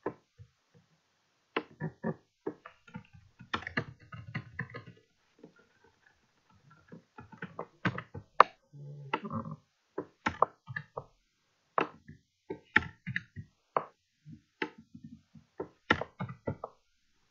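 Computer keyboard keystrokes in irregular bursts, with a short lull about a third of the way in.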